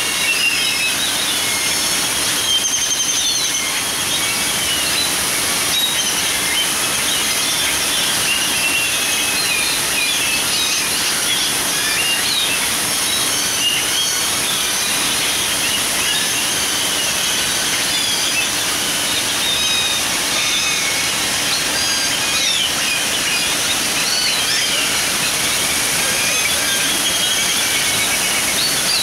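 Steady rush and splash of small waterfalls pouring over rock into a pond, with many small birds chirping throughout.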